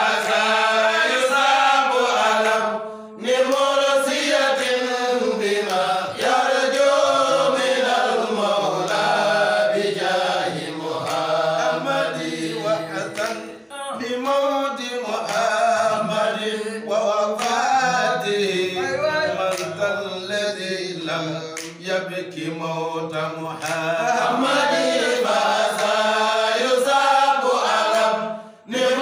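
A group of men chanting an Arabic devotional poem in praise of the Prophet Muhammad, unaccompanied, with short breaks between lines about three seconds in, about halfway through and near the end.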